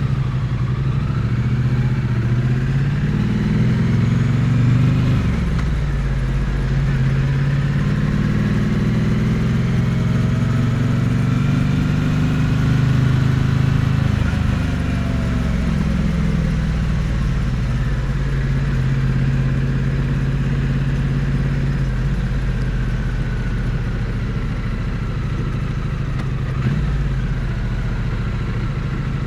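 Triumph Bonneville T100 parallel-twin engine and exhaust under way, heard close to the exhaust. The engine note climbs and falls back twice as the bike pulls away and accelerates, then runs steadily. There is a single short knock near the end.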